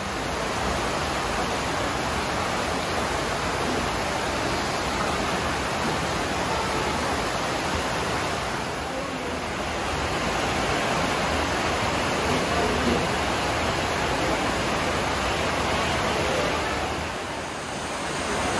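Steady rushing and rumbling of a passenger train running, heard from inside the carriage, easing slightly twice.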